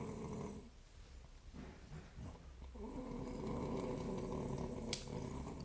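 A sleeping woman snoring. One snore trails off about half a second in, and after a pause of about two seconds a second, longer snore lasts nearly three seconds.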